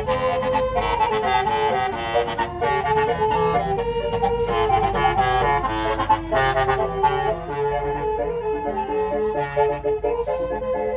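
Bus telolet horn (Basuri multi-tone air horn) playing a fast melody of short stepped notes, over the low rumble of the bus engine.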